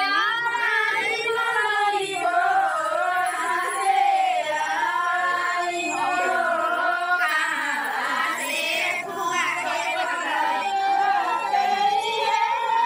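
Women's voices singing a melody together, with long wavering held notes and no beat.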